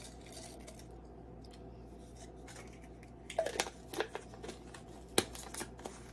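A few light clicks and rattles of a small spice jar being handled and its cap worked shut, with one sharper click a little after five seconds in, over a faint steady hum.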